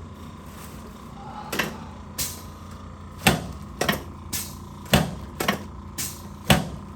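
Sharp knocks and clacks, two single ones and then a quick, fairly even run of about two a second, over a steady low hum.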